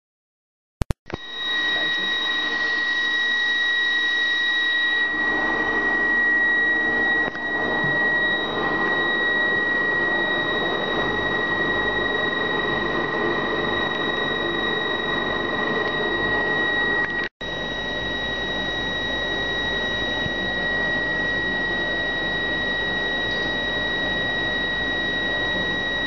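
A microwave drying rig with an electric blower fan running: steady machine noise under a constant high-pitched whine, with a fainter second whine above it.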